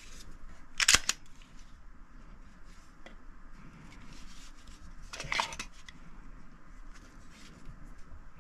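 A pistol handled in and out of its hard plastic case: two sharp knocks of hard plastic and metal, the louder about a second in and another about five seconds in, with soft rubbing and small clicks between.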